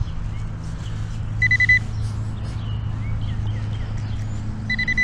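Metal detector beeping on a target in the dig hole: two short bursts of rapidly pulsing high beeps, about one and a half seconds in and again near the end, over a steady low rumble.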